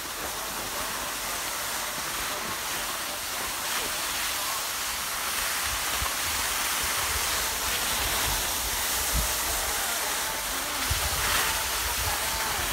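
Skis sliding and scraping over packed, chopped-up snow as a steady hiss, with wind buffeting the microphone in irregular low rumbles that grow a little louder in the second half.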